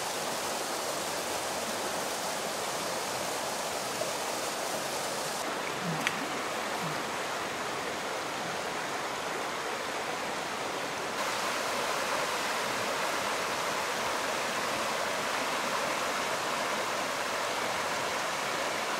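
Shallow, rocky river running over riffles: a steady rush of water, a little louder from about two-thirds of the way in.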